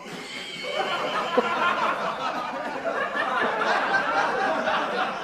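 Laughter: a continuous run of chuckling with no words.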